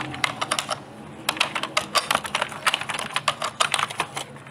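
Computer keyboard being typed on: quick, irregular runs of key clicks, with a short pause about a second in.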